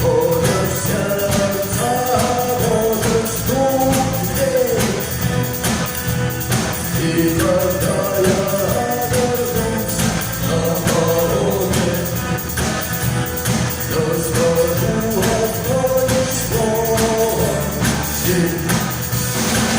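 Rock band playing a song, with a sung vocal melody over a steady drum beat.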